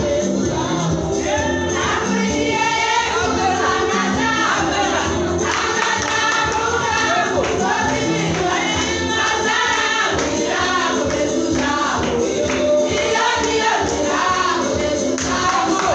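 Church choir singing a gospel song with amplified backing band and tambourine, loud and continuous.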